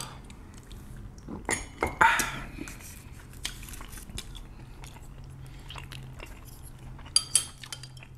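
Close-miked eating sounds of rice cakes in sauce: chewing, with sharp clicks of chopsticks and utensils about a second and a half to two seconds in and twice more near the end, over a low steady hum.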